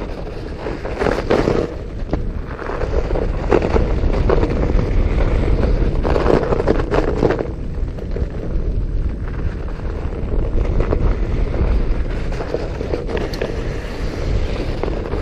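Fat bike riding over frozen snow and dirt trail: a steady low rumble of wind on the camera microphone, with the crunch and rattle of the fat tyres and bike over rough ground. The noise gets louder in a few rough patches, about a second in, around three and a half seconds, and again from six to seven and a half seconds.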